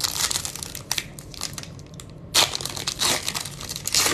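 Shiny plastic wrapper of a Bowman Platinum baseball card pack crinkling and being torn open by hand, in several sharp bursts, the loudest about two and a half seconds in.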